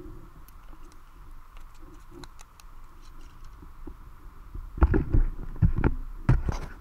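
A landed fish flapping on concrete: faint scattered ticks, then about two thirds of the way in a run of loud, irregular thumps and slaps.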